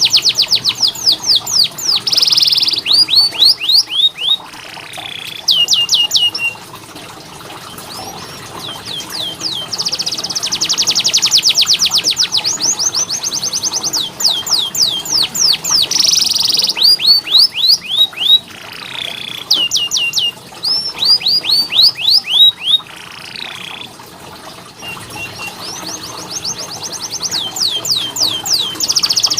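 Domestic canary singing: very fast rolls of rapidly repeated high notes alternate with slower runs of sweeping whistled notes, with a couple of brief pauses.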